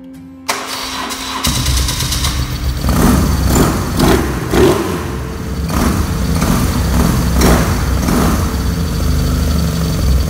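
BMW R1200C's boxer twin engine turning over on the starter and catching, then idling with a string of quick throttle blips.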